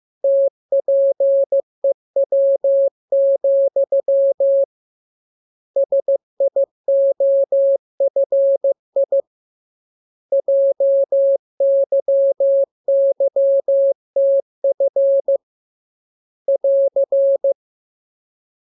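Morse code (CW) practice transmission: a single mid-pitched tone keyed on and off in dots and dashes, in runs of characters split by pauses of about a second. It stops shortly before the end.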